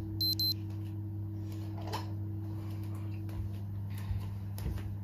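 Two short high electronic beeps right at the start, over a steady low electrical hum, followed by a few faint clicks and knocks.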